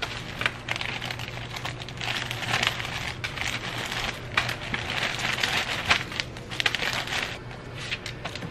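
Plastic bags rustling and crinkling as a clear bag of folded t-shirts is handled and pushed into a plastic mailer bag, in an irregular run of crackles.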